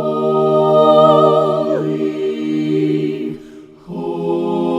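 Unaccompanied voices singing a hymn in parts, slowly, on the word "holy". One long held chord ends about three seconds in, and after a short breath a new held chord begins.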